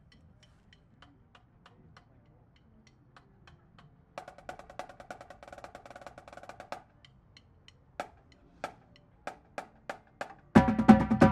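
Marching drumline in a quiet passage. Light, evenly spaced ticks come first, then a soft roll about four seconds in, then a few separate accented strokes. Near the end the full battery of snares, tenors and bass drums comes in loudly.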